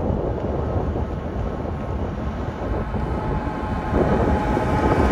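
Diesel locomotives at the head of a Union Pacific intermodal train running as they approach slowly, with wind buffeting the microphone. The sound grows louder about four seconds in as the lead locomotive nears.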